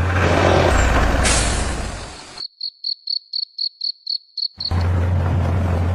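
Steady noise with a low hum cuts out suddenly. For about two seconds there is only a cricket chirping, a quick run of short high pulses about five a second. Then the noise and hum come back.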